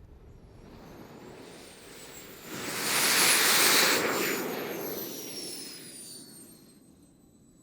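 A jet trike's small turbine jet engine passing by. Its whine and rushing exhaust build to a peak about three seconds in, then fade as the whine drops in pitch.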